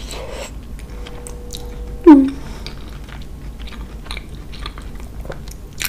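Close-up mouth sounds of a person chewing a bite of fufu dipped in efo riro vegetable stew: soft wet smacks and small clicks. About two seconds in, a short hum slides down in pitch.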